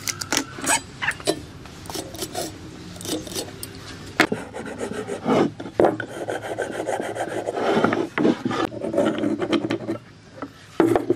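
Hand tools scratching and scraping on pine boards during marking out. There is a run of short scrapes and clicks, then a longer stretch of steady rough scraping from about five and a half seconds to ten seconds in.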